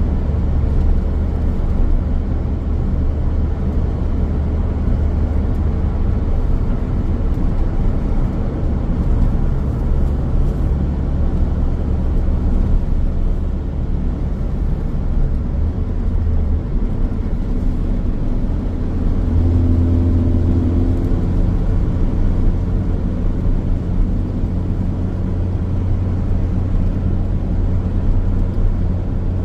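Car driving on a road: steady tyre and road rumble under a low engine hum, whose pitch shifts a little past halfway and swells briefly a few seconds later.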